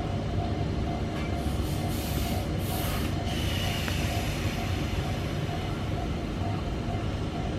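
Electric train at a station: a steady low rumble with a steady mid-pitched hum, and a burst of hiss between about one and three seconds in.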